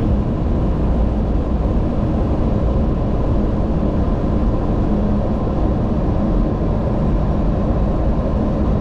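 Steady rush of airflow and engine noise in the flight deck of a Boeing 737-800 on short final approach, just above decision height, with a faint steady tone running through it.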